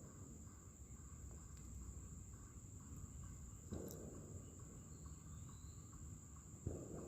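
Insects trilling in one steady, unbroken high-pitched drone, over a low rumble of background noise.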